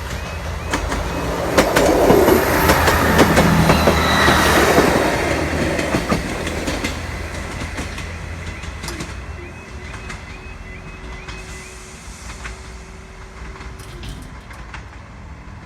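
A train passing over a level crossing, loudest two to five seconds in with the clicking of its wheels over rail joints, then fading away. The crossing's repeating warbling alarm tones sound at the start and again from about ten seconds in.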